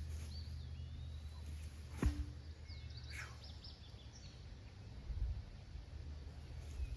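Steady low outdoor rumble with a few faint bird chirps, and one sharp knock with a brief ring about two seconds in.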